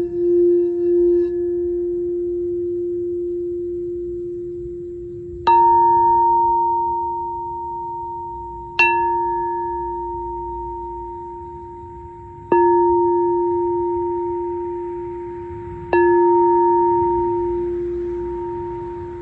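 Singing bowl ringing on one low sustained note, pulsing at first. It is then struck four times, about every three and a half seconds, each strike adding a brighter ringing tone that slowly dies away.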